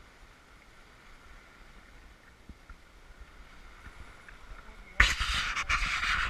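Faint rushing of wind and water on a sailboat under way. About five seconds in, a sudden loud rushing hiss with crackle breaks in.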